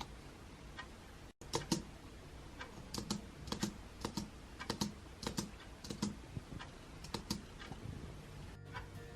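Typing on a Bluetooth keyboard: unhurried, uneven key clicks, a few a second, with a brief cut to silence about a second and a half in.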